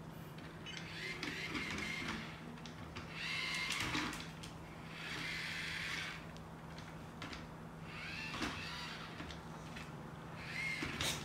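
VARRAM Pet Fitness robot's small wheel motors whirring in several short spurts, with brief rising and falling whines, as it drives on a wooden floor. A steady low hum runs underneath.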